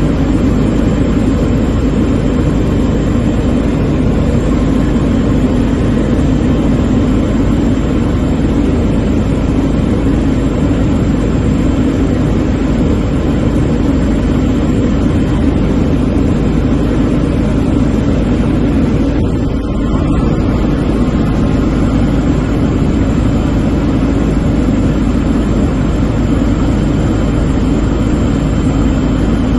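Aircraft engine noise heard from inside the cabin, a loud steady drone with a slight brief dip about two-thirds of the way through.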